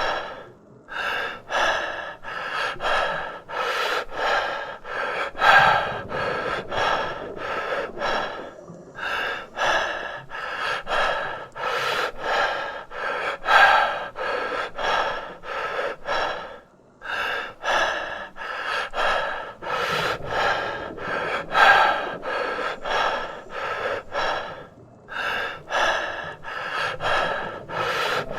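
A person breathing in quick, short breaths, about one and a half a second, broken by a brief pause roughly every eight seconds.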